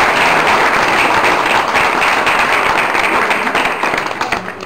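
Audience applauding, a dense patter of many hands clapping that starts to die away near the end.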